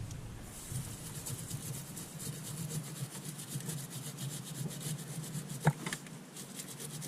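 A stiff brush scrubbing a corroded car battery terminal, with rapid rough rubbing strokes; baking-soda solution is the cleaner being used. A single sharp knock comes late on.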